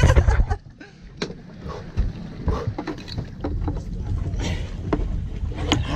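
Sounds aboard a fishing boat at sea: a steady low rumble with scattered short knocks and clicks.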